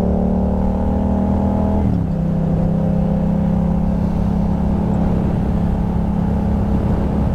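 Yamaha MT-07 parallel-twin motorcycle engine with a Dominator exhaust, heard while riding. It pulls with slowly rising revs, drops in pitch abruptly about two seconds in, then runs at steady revs.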